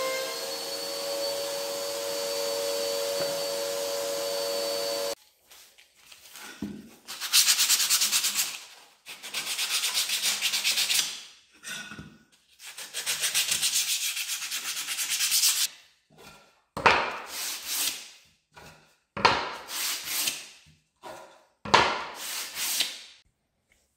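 Hand sanding plywood edges with a sheet of sandpaper: long rasping strokes, then a run of shorter separate strokes. Before it, a power tool with a steady whine runs for about five seconds and cuts off suddenly.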